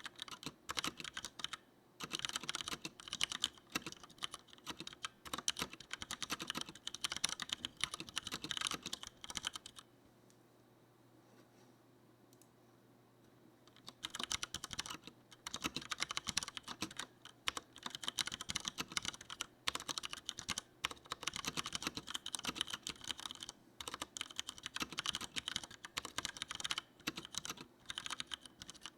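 Typing on a Leopold FC900R mechanical keyboard with Cherry MX Brown switches, which are tactile and not clicky. The keystrokes come fast and irregular, stop for about four seconds near the middle, then start again.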